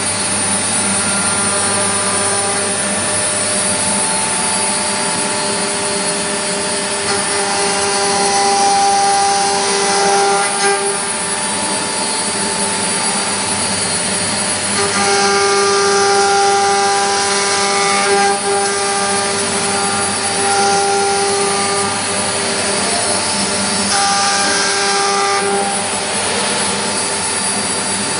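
4-axis CNC milling machine running, with a steady whine of motors throughout. Three times it grows louder for a few seconds, a stronger tone and a high hiss coming in as the machine moves or cuts.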